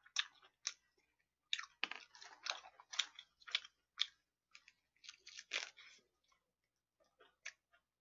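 Close-miked chewing and crunching of a mouthful of lettuce-wrapped pork belly, irregular crisp crackles that come in thick runs about a second and a half in and again around five seconds in.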